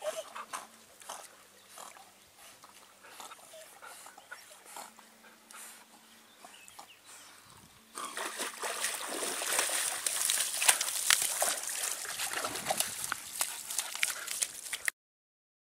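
Collies swimming in a pond: faint lapping and sloshing water with small clicks and dog sounds. About eight seconds in it turns much louder and closer, with splashing and water dripping from a wet collie's coat at the water's edge, and cuts off suddenly near the end.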